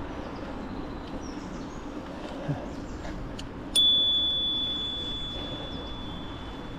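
A single bright metallic ding that rings on and slowly fades over about three seconds, over the steady rumble of riding and wind on the microphone.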